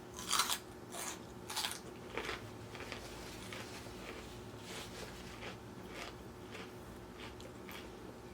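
Close-miked chewing of crunchy raw salad: several loud crunches in the first two seconds or so, then softer, scattered ones.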